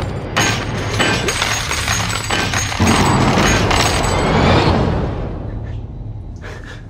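Dense metallic clattering and clinking of gold coins piling up, with ringing tones and music underneath, thinning out and fading over the last couple of seconds.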